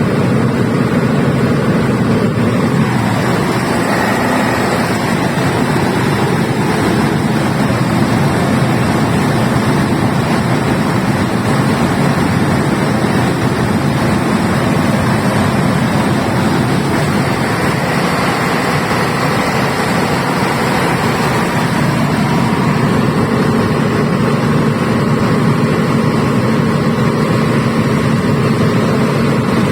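Iveco diesel generator set running steadily at a constant loud level.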